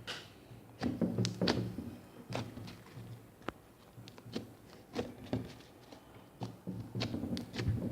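Homemade glue-and-borax slime being squeezed, poked and slapped by hand, giving irregular soft thuds and short sticky clicks and pops.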